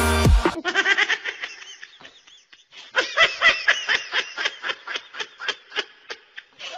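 Baby monkey squealing in quick, squeaky chattering bursts, about five a second, while being tickled: a short run near the start, then a longer run from about three seconds in.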